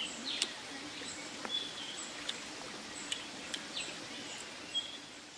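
Birds calling in short whistled notes and chirps over a steady hiss of background noise, with a few sharp clicks scattered through.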